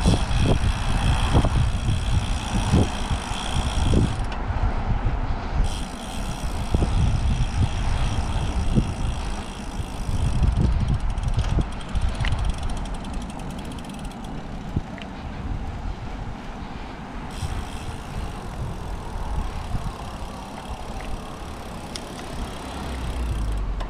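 Wind buffeting the microphone with a deep, uneven rumble while riding, mixed with road and vehicle traffic noise and a few light knocks.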